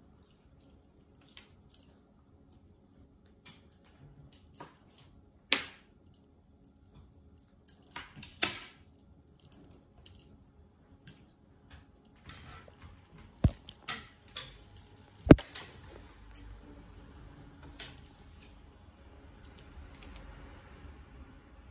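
Irregular sharp clicks and taps of a cat-teaser wand toy and its lure knocking on a glass tabletop as a cat paws at it. The knocks are loudest through the middle, with the sharpest one about fifteen seconds in.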